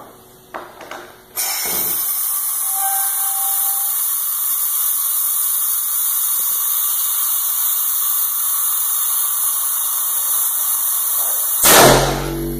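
Homemade 3-inch PVC pneumatic air cannon, charged to 120 psi: a steady hiss of compressed air for about ten seconds, then near the end a loud blast as the cannon fires.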